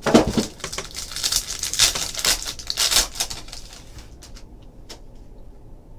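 Shiny plastic wrapper on a trading-card box crinkling and tearing as it is handled and opened, in quick crackly strokes. It fades after about three seconds to a few small clicks.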